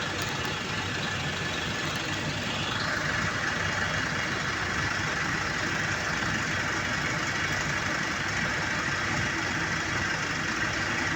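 Engine of palm-fruit loading machinery running steadily; about three seconds in a higher-pitched whine comes in and holds.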